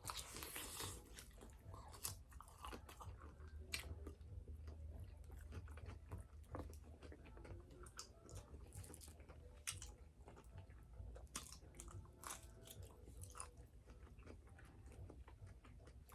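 A person chewing crispy fried chicken up close to the microphone, quietly, with irregular sharp crunches of the crust as it is bitten and chewed.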